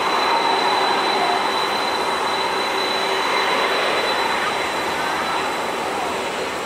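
Boeing 747-400 freighter's four turbofan engines running at low taxi thrust: a steady high whine over an even rushing hiss.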